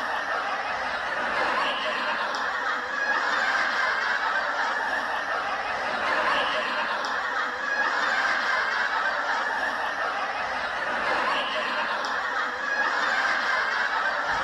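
Recorded laughter played as a continuous sound effect, repeating about every five seconds like a looped laugh track.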